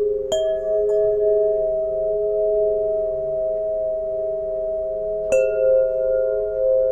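Solfeggio-tuned tuning pipes ringing together in long sustained tones, with a fresh pipe struck twice, about five seconds apart, each strike adding a bright metallic ring that fades while the lower tones hold.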